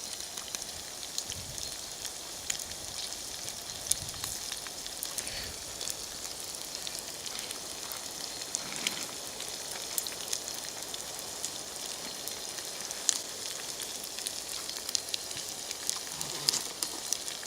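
Meat frying in pork fat in a camp pot, a steady sizzle with scattered sharp pops and crackles as it browns.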